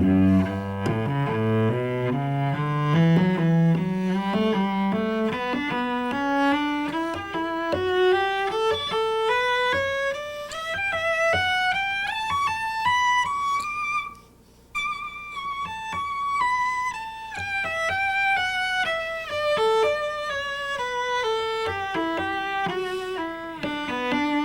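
Solo cello playing a scale in even, separate notes, climbing steadily through about four octaves from the low register to high in the thumb positions. It breaks off briefly at the top about halfway through, then starts descending.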